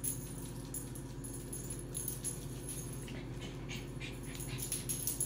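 Faint clicking and ticking of a dog's claws on a hard kitchen floor, growing busier toward the end, over a steady low hum.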